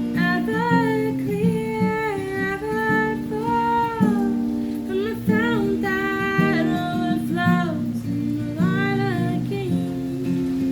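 A voice singing a melody in phrases over acoustic guitar.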